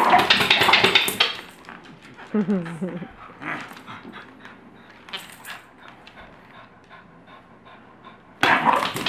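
A dog playing with a bowling pin: two loud bursts of rapid clattering and scuffling, one at the start and one near the end, with a short pitched vocal sound in between.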